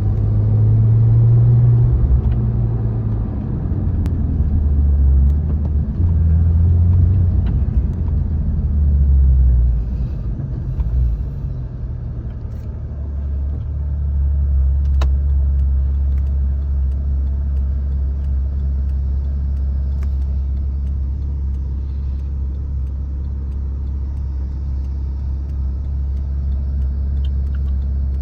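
Porsche 997 Carrera GTS's 3.8-litre flat-six running through its stock exhaust. For the first ten seconds or so it runs a little faster and unevenly with small swells, then it settles into a steady low idle.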